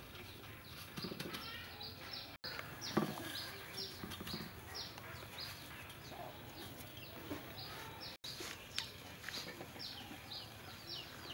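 Small birds chirping steadily: a run of short, falling peeps, a few each second. A single dull knock stands out about three seconds in.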